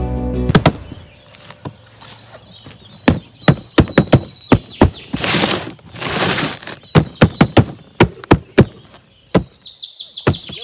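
Sharp clicks and knocks, a dozen or more spread over several seconds, with two short bursts of rustling or whirring in between: a die-cast model jeep being handled.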